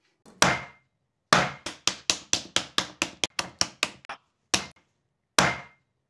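Sharp knocks or taps: a single one, then a quick run of about fifteen that speeds up slightly, then two more spaced apart.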